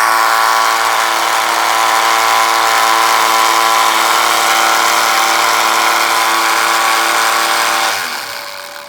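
Homemade mini lathe's electric motor running steadily at speed with a whine, then switched off about eight seconds in, its pitch falling as it winds down.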